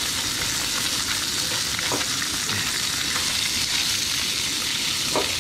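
Fish fillets sizzling in oil in a nonstick frying pan: a steady frying hiss.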